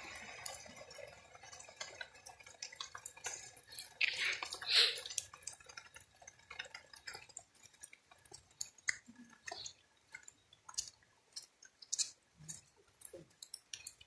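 Irregular small wet clicks and drips, like water dripping and squelching on a rain-soaked muddy path, with one brief louder sound about four to five seconds in.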